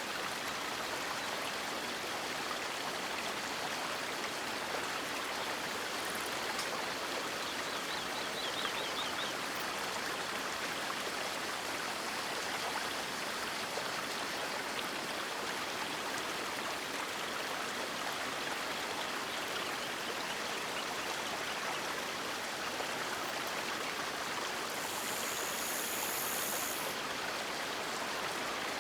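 River water rushing steadily, an even, unbroken wash of sound. A brief, very high-pitched hiss lasts about two seconds near the end.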